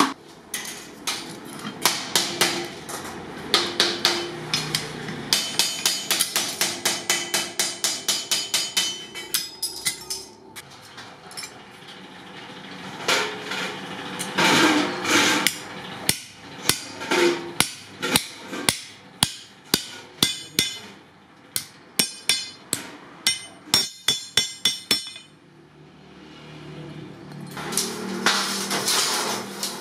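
Hand hammer blows on sheet iron and steel: runs of quick, regular metallic strikes with short ringing, first on a galvanized iron milk can body, then on flat steel strips held on an anvil block. Near the end a stretch of rough metallic noise builds up.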